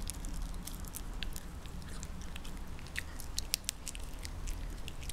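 A small dog gnawing a chew-bone held in its paws: irregular small clicks and crunches of teeth working on the chew, several a second with no steady rhythm.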